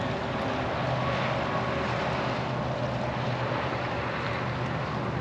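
Pickup truck towing a travel trailer pulling away, a steady engine hum with road noise.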